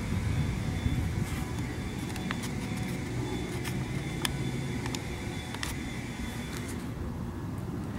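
Steady low outdoor rumble with a few faint, sharp ticks in the middle.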